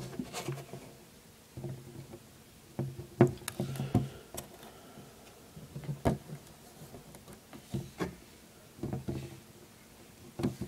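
Scattered light clicks and taps of small metal carburetor parts and a tool being handled, about a dozen separate ticks and knocks with pauses between them, as the little spring and lever of a weed whacker carburetor are worked back into place.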